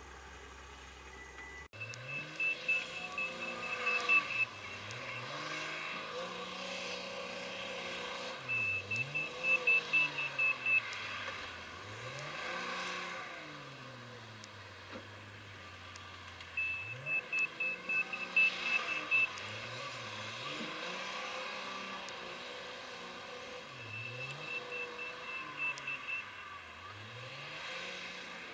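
Komatsu WA350 wheel loader's diesel engine revving up and down with each bucket cycle, and its reversing alarm sounding four times in bursts of rapid high-pitched beeps as it backs away. The uploader finds this reversing sound strange.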